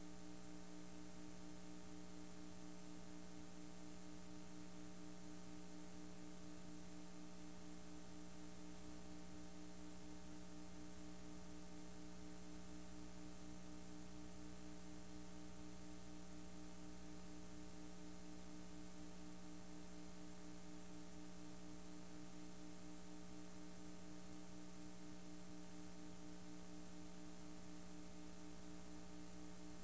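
Faint steady electrical hum with a light hiss, unchanging throughout: the background noise of a blank stretch of a VHS tape transfer.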